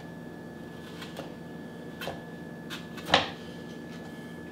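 A paring knife peeling a green apple by hand, giving a few faint crisp cuts and one sharp crunch about three seconds in as the blade bites through the peel.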